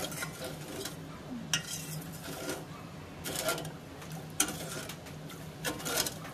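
A steel ladle scrapes and clinks against the side of a stainless steel pot while stirring coconut milk to dissolve the sugar. There are several sharp clinks spread through, over a steady low hum.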